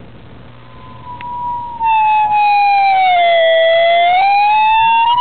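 Ampeg B12X tube amplifier putting out a loud, unwanted whistle through its speaker, the 'dog whistle' fault that remains with the circuit board in stock configuration. The whistle starts faintly, swells to full loudness about two seconds in, and its pitch slides down and back up, with thinner higher tones above it.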